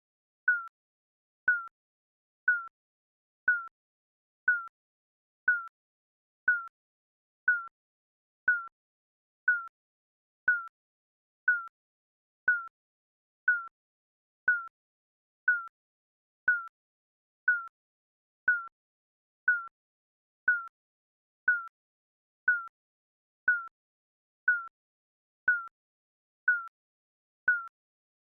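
Digital timer beep sound effect: a short, high electronic beep repeating exactly once a second, each beep dipping slightly in pitch.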